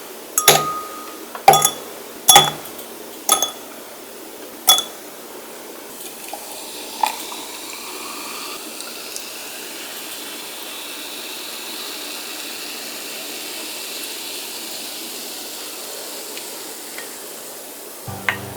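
Five ice cubes dropped one at a time into a glass, each a sharp clink, then liquid poured in over the ice with a steady hiss for about twelve seconds.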